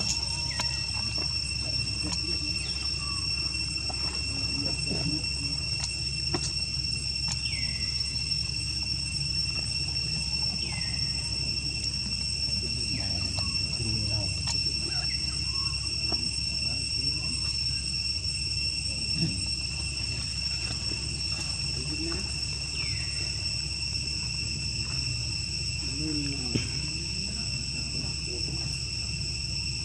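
Insects giving a steady, high-pitched, unbroken trill over a low hum, with a few short falling chirps now and then.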